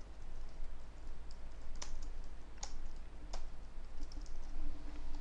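Typing on a computer keyboard: irregular keystrokes, with a few sharper clacks in the middle.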